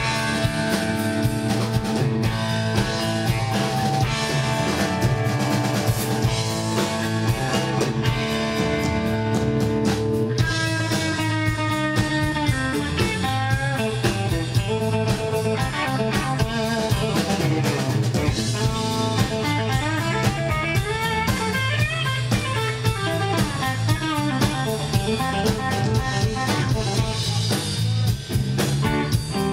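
Live blues-rock band playing an instrumental passage: electric guitar, bass guitar and drum kit. From about ten seconds in, a lead line of fast notes that bend in pitch runs over the steady rhythm.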